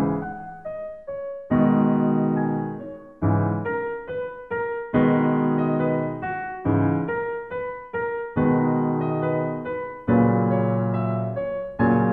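Piano music: slow chords struck every second and a half or so, with single notes between them, each note dying away.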